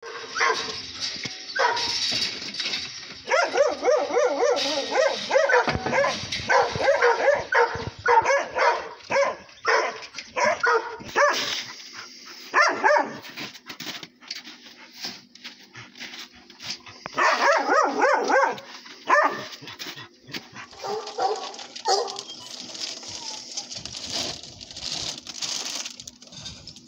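Several dogs barking and yelping excitedly at feeding time, in repeated bursts with short pauses between them.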